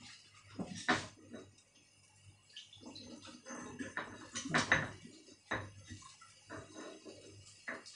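Water poured from an electric kettle into a stone mortar, with the pestle knocking against the mortar several times.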